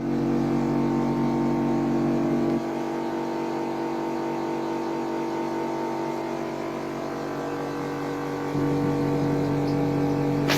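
Faulty compressor of an AEG L9WBA61B washer-dryer running with a loud, steady hum. The hum drops in level about two and a half seconds in and swells again near the end, where there is a sharp click.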